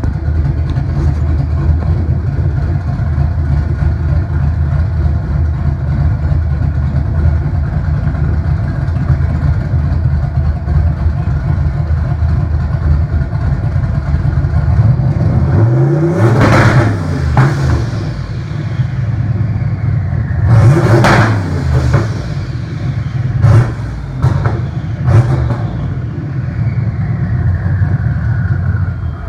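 Turbocharged Ford Mustang engine idling steadily, then revved hard twice, once about halfway and again about two-thirds in, followed by three short throttle blips. Near the end a high whine falls slowly in pitch.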